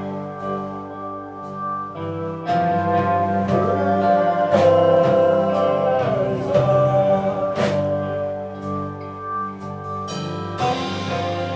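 Rock band playing live: electric guitar and held chords over a drum kit with regular cymbal and drum hits, and a note sliding down in pitch about six seconds in.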